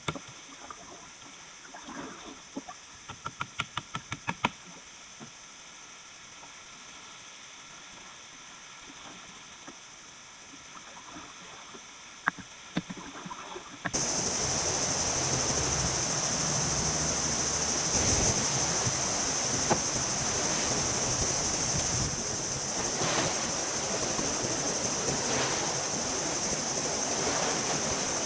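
A quick run of light knocks and clicks over a quiet background. About halfway it cuts suddenly to the steady rush of sea waves breaking on the shore.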